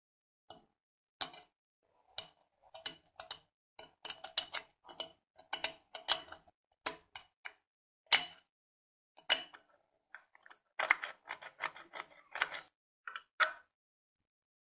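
Steel point picking and scraping in the slot of a screw head set in a block plane's wooden knob: irregular sharp metallic clicks and short scratches, coming closer together about eleven seconds in.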